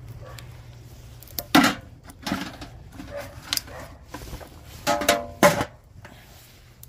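Small metal pail and its tin lid being handled: several sharp clanks and knocks, one about five seconds in ringing briefly, as the lid is pressed back on.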